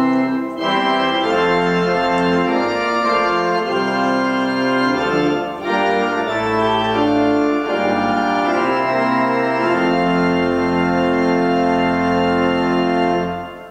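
Two-manual organ playing a German hymn tune in full sustained chords over a deep bass, with short breaks between phrases about half a second and five and a half seconds in. It ends on a long held final chord that is released shortly before the end.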